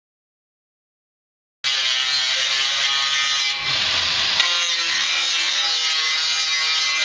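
Dead silence for about a second and a half, then a grinder working on metal cuts in abruptly: a steady, loud high whine over a rough hiss.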